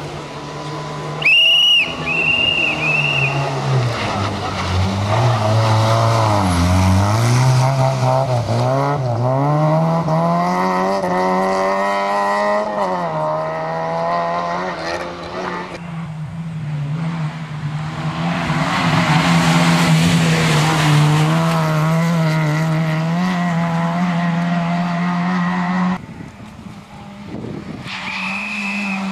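Rally car engine driven hard, revving up and dropping back again and again through gear changes as the car passes. A shrill whistle sounds briefly about a second in and again near the end.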